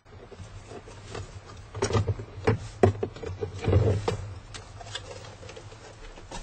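A run of irregular knocks and clicks, heaviest about two to four seconds in, over a low rumble: handling noise.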